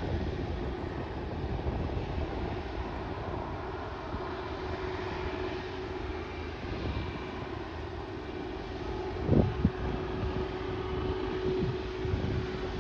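Low, steady rumble of a freight train, with a steady hum coming in about four seconds in and a single thump about nine seconds in.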